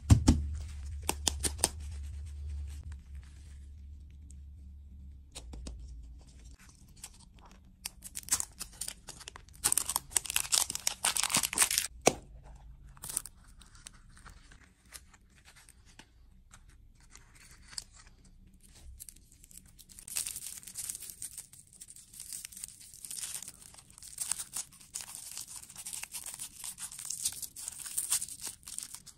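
Plastic candy wrappers being torn open and crinkled by hand, with scattered clicks of handled plastic. Crinkling runs almost unbroken through the last third as a foil lollipop wrapper is peeled off.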